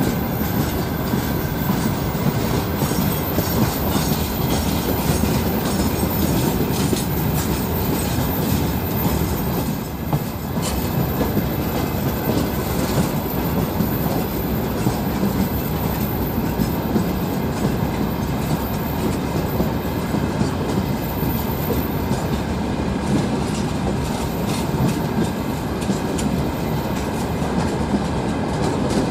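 Freight train's open gondola wagons rolling past close by, their steel wheels clattering over the rail joints in a steady run of clicks over a continuous rolling noise.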